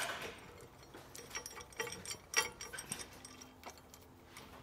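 Faint, irregular metal clicks and ticks as nylon lock nuts are spun on by hand onto the threads of steel U-bolts on a steering-stabilizer tie-rod bracket. The sharpest click comes about halfway through.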